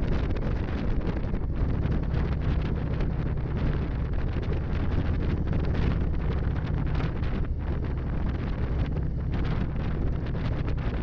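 Wind buffeting the microphone over the steady low drone of a cruiser motorcycle's engine cruising at road speed.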